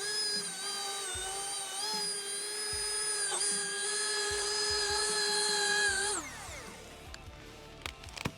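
Milwaukee M18 Fuel 20-inch dual-battery chainsaw running at full speed with a steady high whine, dipping briefly about three seconds in. About six seconds in the trigger is released and the motor winds down, falling in pitch, followed by a couple of sharp clicks.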